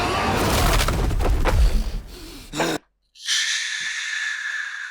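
Action film soundtrack: dense music and effects with heavy bass that cut off abruptly about three seconds in. A steady breathy hiss follows, lasting under two seconds.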